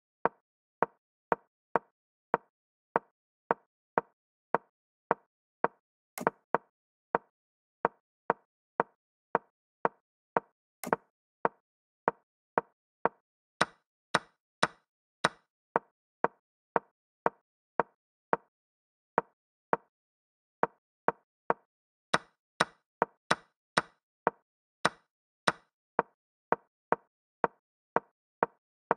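Chess app move sounds: a short wooden click for each move as a game replays quickly, roughly one and a half to two clicks a second. Two clicks about six and eleven seconds in are louder, and two short runs of clicks are brighter and sharper.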